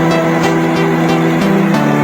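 Background music: held chords that change every half second or so, with a steady beat-free texture.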